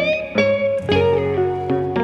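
Background music: a guitar plays a melody of plucked notes, changing roughly every half second, with a note bending upward near the start.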